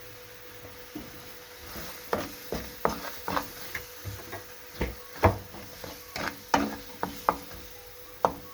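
A spoon stirring a tomato and onion base in a cooking pot, knocking irregularly against the pot's side about twice a second from about two seconds in.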